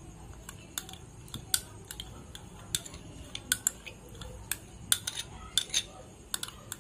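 A steel spoon clinks and scrapes against a small container and a mixing bowl while sour yogurt is scooped out, giving a string of irregular sharp taps.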